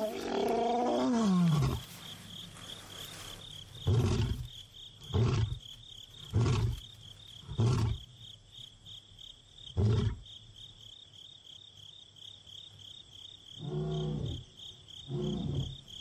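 Young male lion roaring: one long moaning call that falls in pitch, followed by a series of short grunts spaced a second or more apart. It is a contact roar, calling for a missing companion, over the steady chirping of crickets.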